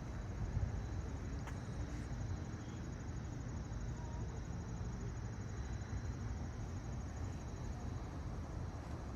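Outdoor ambience: crickets trilling in a fine, even pulse over a steady low rumble of wind on the microphone.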